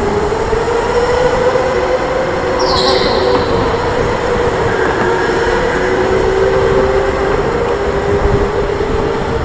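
Electric indoor go-kart driving at speed: a steady electric-motor whine in two close tones over rushing tyre and air noise, with a short high squeal falling in pitch about three seconds in.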